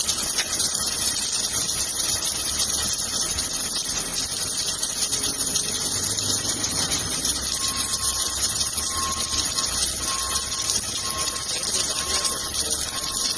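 Submerged arc welding equipment running: a steady hiss over a low machine hum, with a faint thin whine joining about halfway through.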